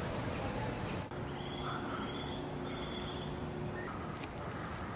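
Outdoor background noise, a steady hiss and rumble, with a few short bird chirps.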